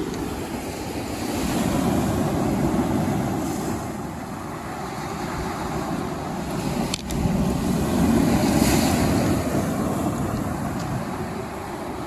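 Lake Superior surf breaking on a cobble shore, swelling and easing twice, with wind rumbling on the microphone and a short click about seven seconds in.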